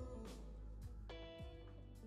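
Quiet background music of plucked guitar notes, each ringing out, with the overall level slowly fading.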